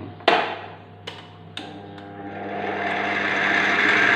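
Stand mixer's tilt head clunking down into place, followed by a couple of clicks, then its motor starting and the balloon whisk beating liquid cream, the whir growing steadily louder as the speed is turned up.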